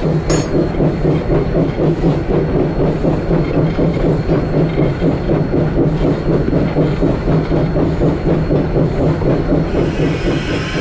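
Coal-fired steam locomotive working up a grade, heard close beside its driving wheels and running gear: an even rhythmic beat about three times a second over a steady low drone. A hiss joins near the end.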